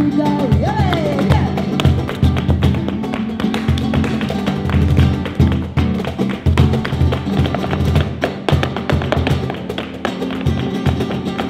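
Live flamenco: rapid heel-and-toe footwork stamping on a wooden dance board, a dense run of sharp taps over acoustic guitar and cajón. A singer's voice glides briefly about a second in.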